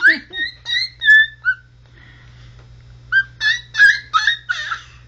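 Baby babbling a high-pitched string of repeated "ta-ta-ta" syllables, in two quick runs with a pause of about a second and a half between them.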